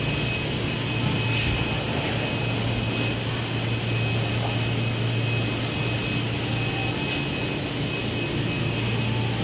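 Steady drone of running machinery: a constant low hum under a rushing hiss.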